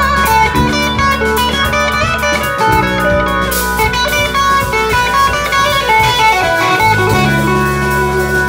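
Live blues band playing an instrumental passage: electric guitar out front over bass, drum kit and keyboard, with a run of quick guitar notes.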